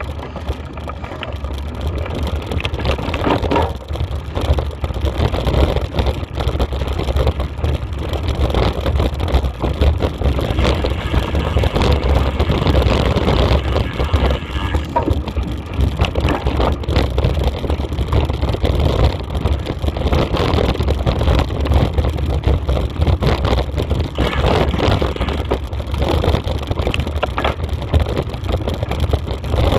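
Wind buffeting the microphone of a camera moving fast along a dirt forest trail: a loud, steady low rumble with constant small knocks and rattles as the camera jolts over the rough ground.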